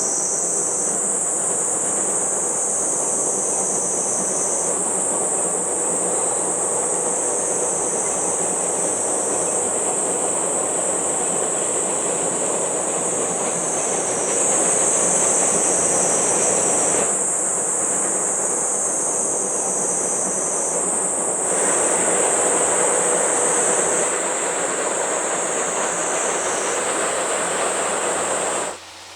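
C57 steam locomotive and its train running across a railway bridge: a steady rumble and clatter of wheels on the rails. A high, steady insect chorus sounds over it, swelling and easing in steps. All of it cuts off abruptly just before the end.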